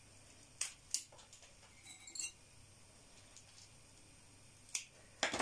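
About five scattered light clinks on empty glass jars as dill heads are put into them one at a time, with quiet in between.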